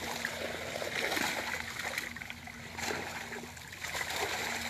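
Splashing and sloshing of shallow, muddy pond water as people wade and drag a fishing net through it, in a string of irregular short splashes.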